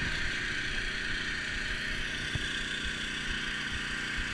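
Small generator engine running steadily on an electrofishing barge, powering the electrofisher, over a steady hiss of moving river water.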